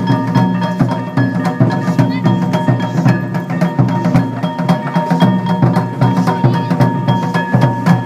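Kurosaki Gion yamakasa festival music: taiko drums beaten without a break under clanging, ringing metal gongs.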